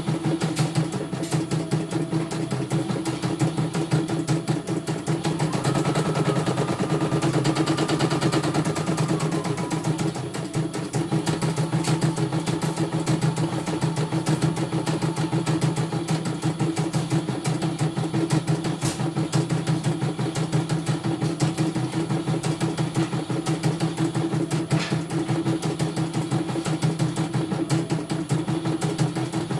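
CNY E900 computerized embroidery machine stitching a design, its needle running in a rapid, even rhythm as the hoop is driven around. It is running again after having been dead.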